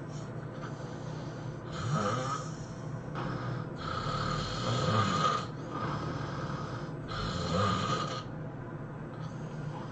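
A sleeping person snoring, with three long, loud snores about two to three seconds apart and a shorter, fainter snore near the end.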